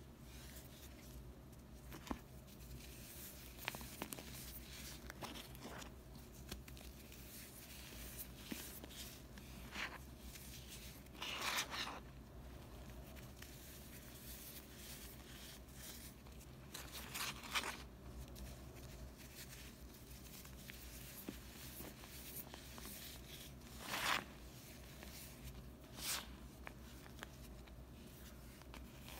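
Powdery slab of Comet and Ajax scouring powder mixed with gym chalk being crumbled and squeezed between fingers: a faint dry crackle and sifting, with a few louder short crunches as chunks break.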